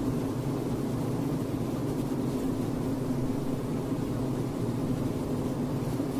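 Bees buzzing in a steady, continuous low drone.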